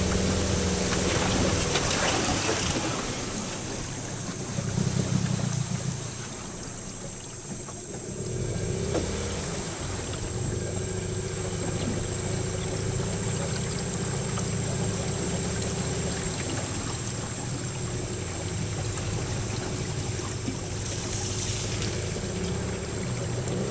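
Boat's outboard motor running steadily, a low hum with a steady pitch, briefly louder about five seconds in.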